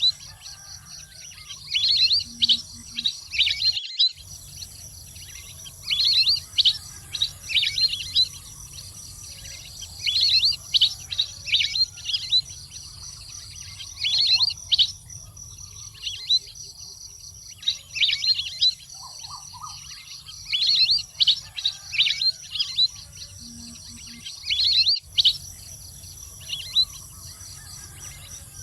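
Water bird ('nok pet nam', a duck-like waterbird) calling: bouts of quick, high, downward-sweeping chirps every few seconds, over a steady high hiss.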